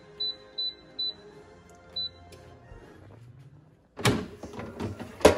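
Innsky air fryer's touch control panel beeping as its buttons are pressed, four short high beeps in the first two seconds. About four seconds in, the air fryer basket is pulled out with a clatter and a loud knock near the end.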